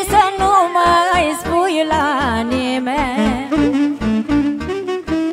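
Romanian folk band music: a saxophone plays a melody with heavy vibrato over a steady bass and drum beat.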